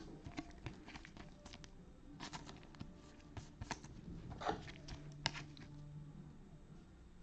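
Trading cards being handled: faint rustling with scattered light clicks.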